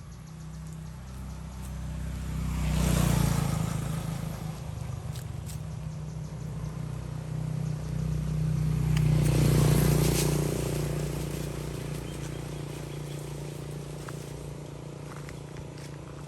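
Motor vehicles passing by: a steady low engine hum, with two pass-bys that swell and fade, about three and about ten seconds in.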